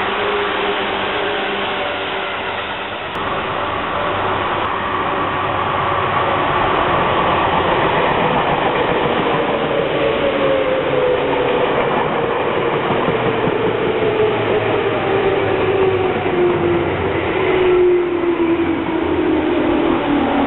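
Yellow Seibu electric commuter train running past, with steady wheel-on-rail noise and a traction-motor whine that falls steadily in pitch over the second half of the sound as the train slows.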